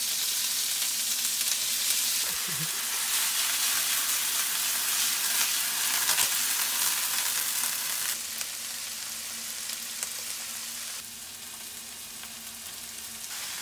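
Ground beef sizzling as it fries in a hot nonstick frying pan, a dense steady hiss. It drops in level about eight seconds in and again near eleven seconds.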